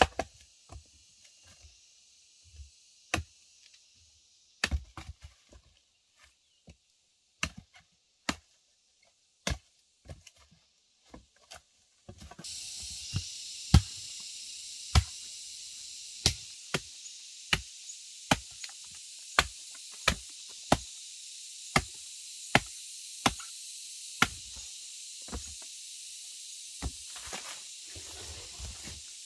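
A blade chopping wood, sharp separate strikes, irregular at first and then settling into a steady run of about one and a half strikes a second. A steady high hiss comes in suddenly about twelve seconds in.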